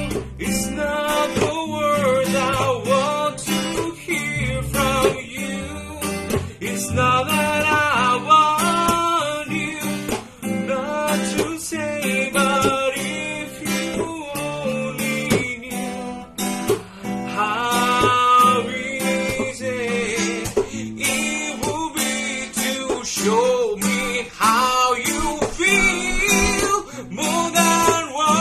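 Acoustic guitar strummed and picked, accompanying a man singing a melodic song.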